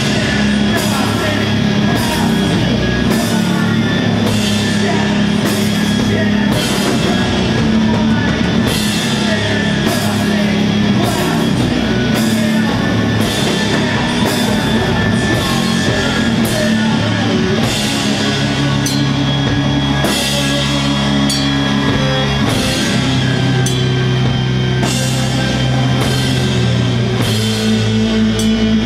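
Live doom metal band playing heavy, slow, sustained guitar and bass chords under drum kit cymbal crashes a little more often than once a second; the chord changes near the end.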